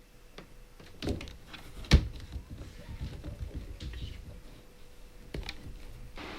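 Scuffling and knocks from a cat's rough play with a hand, with sharp thumps about one second in, a louder one about two seconds in, and another near the end.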